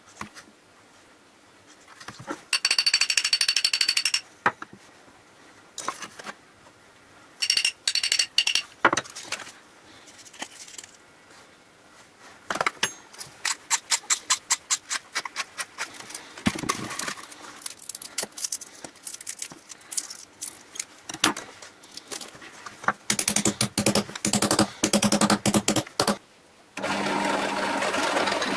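Small steel chain-mail rings from butcher's gloves rattling and clinking in a square steel can as they are spooned in and settled, in several bursts of metallic jingling and rapid clatter. About a second before the end a drill press motor starts and runs steadily, drilling into the welded steel can.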